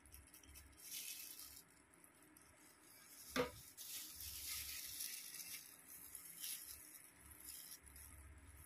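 Faint rustling of clear plastic gloves and a tint brush working hair dye through the hair, in short scratchy bursts, with one sharp click about three and a half seconds in.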